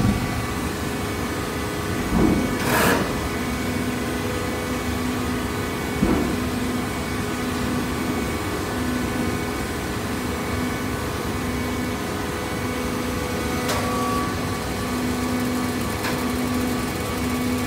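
Industrial baling machine running with a steady mechanical hum and a low tone that pulses on and off, broken by a brief clunk about two seconds in and a few sharp knocks later.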